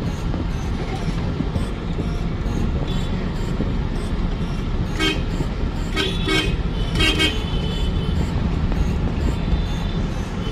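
Steady road and engine drone inside the cabin of a small Maruti hatchback driving along a rough street. Vehicle horns toot in short, broken blasts about five, six and seven seconds in, the last the loudest.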